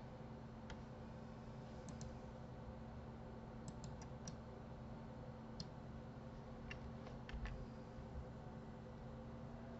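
Faint, scattered clicks of a computer mouse and keyboard, a few single clicks and small clusters over several seconds, above a low steady hum.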